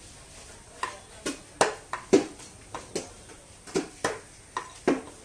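Knife chopping through pieces of red snapper onto a wooden cutting block: a run of sharp chops that starts about a second in, roughly two to three a second at an uneven pace.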